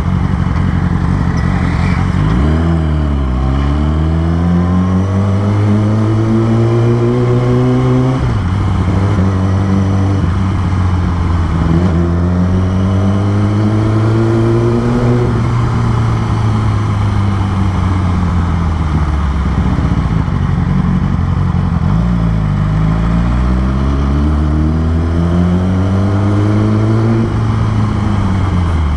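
2013 Yamaha R6's inline-four engine pulling the bike along at low speed, its pitch climbing steadily several times as it accelerates, each climb ending in a sudden drop.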